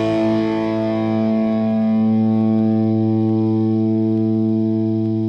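Background music: a distorted electric guitar chord held and ringing steadily.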